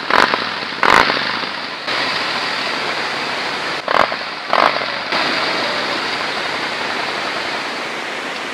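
Cruiser motorcycle's twin chrome exhaust, engine running, blipped sharply about four times in the first five seconds with the revs falling back after each, then a steady idle.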